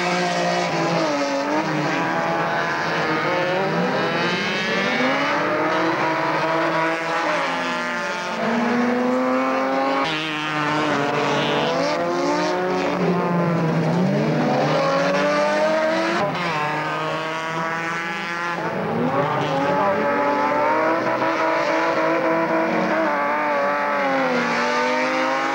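Rallycross racing cars with their engines revving hard. The pitch climbs through each gear and drops sharply at each shift, over and over, with several engines overlapping.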